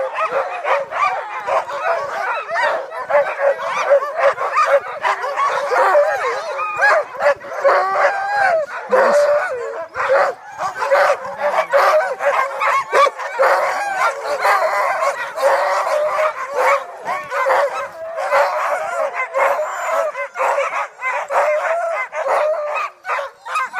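A pack of sled dogs barking and yelping all at once, many voices overlapping into a constant din.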